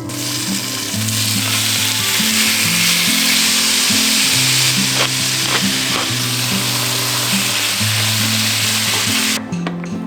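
Food sizzling loudly in a hot frying pan, with a few light clicks of a utensil stirring about halfway through; the sizzle cuts off suddenly near the end. Background music plays underneath.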